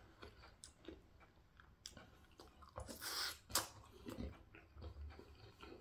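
Faint chewing of food, with small mouth clicks and a slightly louder bite-and-chew about three seconds in.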